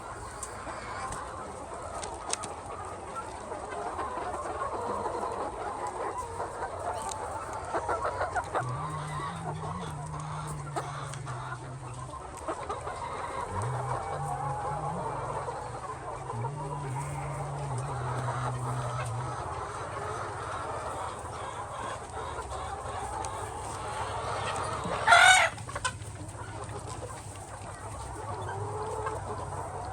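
A flock of chickens clucking and calling continuously, with one much louder call about 25 seconds in. A low steady hum runs under them for part of the time.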